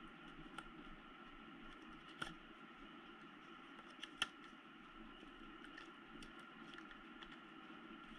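Faint handling of a cardboard box with a clear plastic blister insert being opened by hand: scattered small clicks and crinkles, the sharpest click about four seconds in, over a steady low hum.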